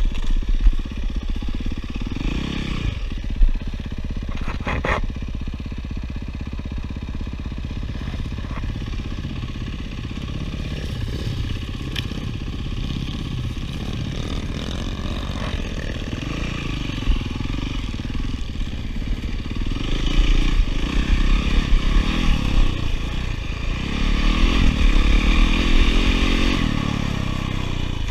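Yamaha dirt bike's engine running under the rider, the revs rising and falling over a rough dirt trail, with clatter from the bike over the bumps. It gets louder with harder revving in two stretches near the end.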